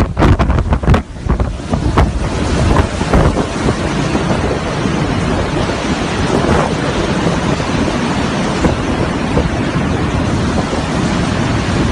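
Hurricane-force wind rushing past a high-rise and buffeting the microphone. It comes in uneven gusts for the first couple of seconds, then settles into a loud, steady roar.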